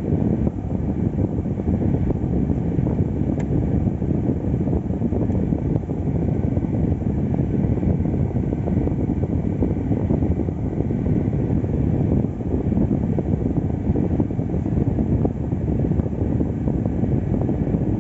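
Car cabin noise: a steady low rumble with rushing air.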